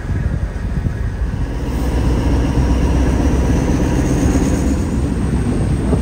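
Diesel passenger train running along the track: a steady low rumble.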